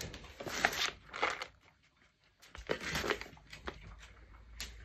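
Soft rustling and a scattered series of light knocks and clicks from movement across a tiled floor, with a brief near-quiet gap about two seconds in.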